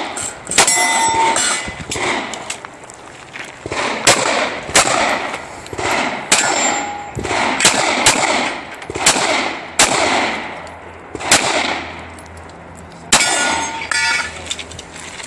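A handgun fired in a fast string of single shots, about one to two a second, with a short pause near the end. Several shots are followed by a metallic ringing clang.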